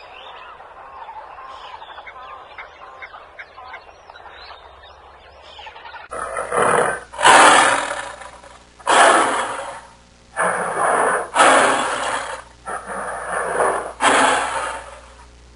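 Faint outdoor ambience with small chirps for about six seconds, then a big cat roars in a rapid series of about seven loud, harsh roars.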